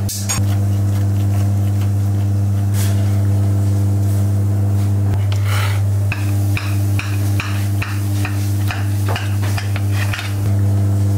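A steady low hum runs throughout. From about five seconds in, a quick run of short knocks and scrapes, about three a second, comes from a knife cutting through a cheese-topped stuffed pljeskavica on a wooden board.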